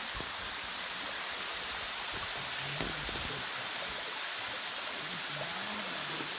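Steady rushing of a waterfall pouring into a rock pool, an even, continuous wash of water noise.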